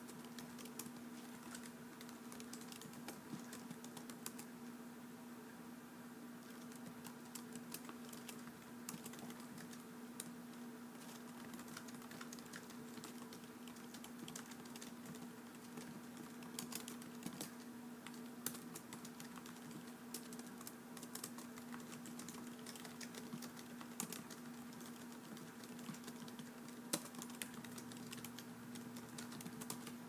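Quiet, irregular typing on a keyboard: a continuous run of key clicks, with a few louder keystrokes, over a faint steady hum.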